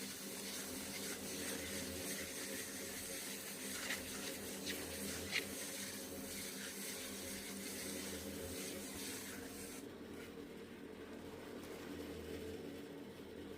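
Water running or pouring with a steady hiss, with a few sharp knocks in the middle, cutting off about ten seconds in. A low steady hum continues underneath.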